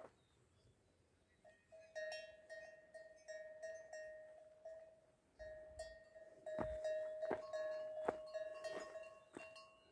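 A cowbell on a cow at pasture, clanking as the animal moves: one ringing bell tone struck about twice a second, starting about two seconds in and louder from around the middle on.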